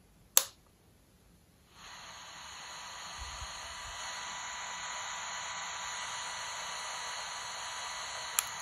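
A pocket AM/FM radio's switch clicks, and a couple of seconds later its speaker starts hissing with static, growing louder for a moment and then holding steady, with a faint steady whistle in it. Another small click comes near the end.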